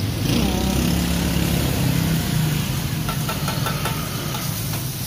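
An engine running with a steady low hum, strongest in the first half and easing off about halfway through. A few light clicks follow over the constant street noise.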